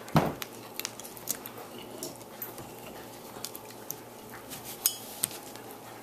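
Small metal corkscrew of a lighter multitool being twisted into a wine bottle's cork: scattered light metallic clicks and scrapes, the loudest just at the start.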